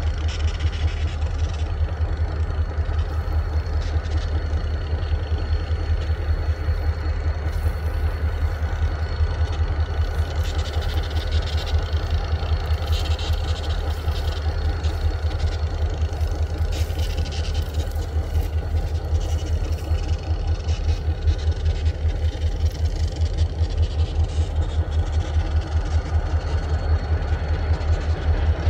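Diesel-electric locomotive engine idling: a steady low throb with an even, fast pulse.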